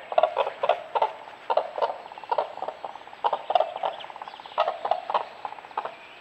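Common cranes calling loudly: a run of repeated calls at about two to three a second.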